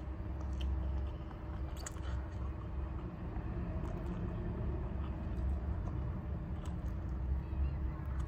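A person eating instant cup noodles, slurping strands in and chewing, with a few short clicks, over a steady low rumble.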